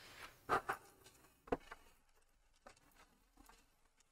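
Faint handling noises: a few soft knocks and taps, the clearest about half a second and a second and a half in, as a plastic cutting die is set onto an AccuQuilt fabric die cutter and pushed toward its roller.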